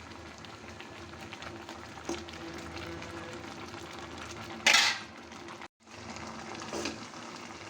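Indian gooseberries cooking in melted palm jaggery, the syrup bubbling and sizzling steadily as the water released from the fruit boils off and reduces. A short, louder scrape sounds about halfway through, and the sound cuts out briefly just after.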